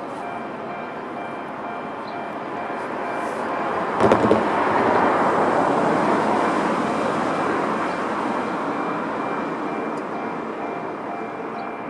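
Japanese electronic level-crossing warning bells ringing steadily with their normal sound, the high-tone unit pitched high. About four seconds in, a few sharp clacks start a swell of passing-vehicle rumble that slowly dies away.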